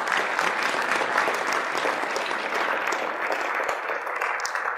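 Audience applauding: a dense, steady round of many people clapping.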